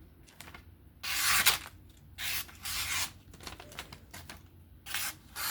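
Vosteed Marten folding knife's 154CM blade slicing through paper to test the edge. There are four short hissing cuts, the longest and loudest about a second in.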